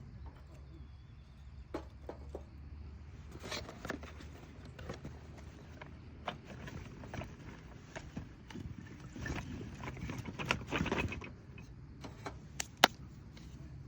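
Rustling and light knocks of dry material being handled, with a louder stretch of rustling partway through and a single sharp click or snap near the end.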